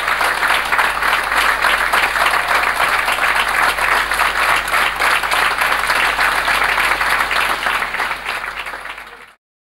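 Theatre audience applauding steadily at a curtain call, a dense wash of clapping that fades near the end and then cuts off abruptly.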